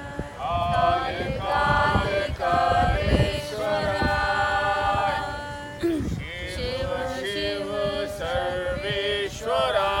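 Group chanting by men's voices during a yoga session, in long held notes that step up and down in pitch, with a brief dip about six seconds in.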